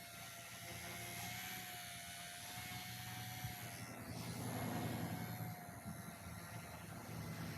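Electric motors of an XK K110 micro RC helicopter whining steadily in flight, the pitch wavering slightly, with wind rumbling on the microphone that grows stronger about halfway through.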